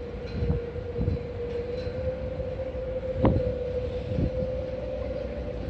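A steady mechanical hum holding one pitch over a low rumble, with a few short soft knocks.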